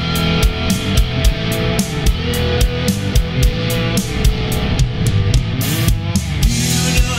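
Rock music: electric guitar over a drum kit keeping a steady beat.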